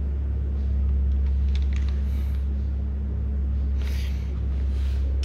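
A steady low hum throughout, with a few faint light taps and rustles from a dial bore gauge being handled in an aluminium block's cylinder bore.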